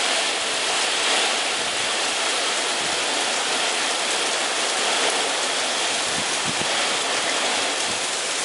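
Heavy rain coming down in sheets, a steady even rush without let-up, from a rain band of an approaching storm.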